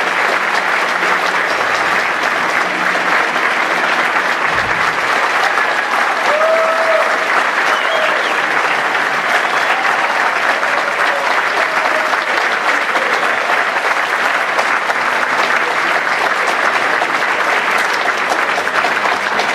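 Large theatre audience applauding steadily, with a few short whoops rising over the clapping.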